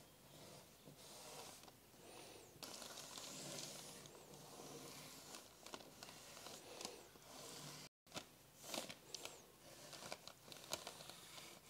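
Faint scratching and sliding of a graphite pencil on a paper sheet as scrollwork lines are drawn, with light rustling of the paper. The strokes grow sharper and more frequent in the last few seconds.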